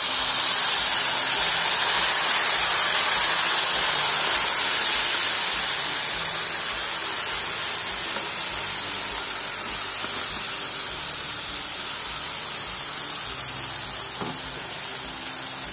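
Wet curd, cashew and poppy-seed paste sizzling as it hits hot oil in a kadai. The hiss starts suddenly, loud, and slowly dies down.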